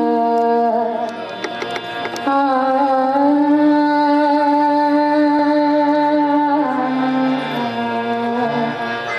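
A woman singing a devotional bhajan, holding long notes that change pitch a few times, over a steady sustained instrumental tone.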